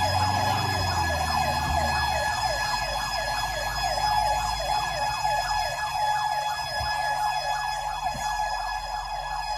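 Emergency vehicle siren in a fast yelp, sweeping up and down about three times a second, over a low engine rumble.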